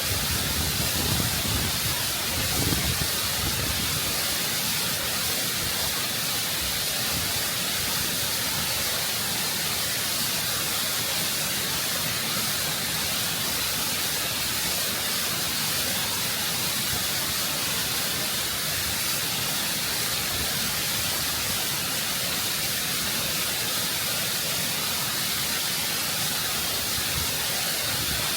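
Waterfall water rushing and cascading over rock close by, a steady, constant rush of dense noise. A few brief low surges come within the first three seconds.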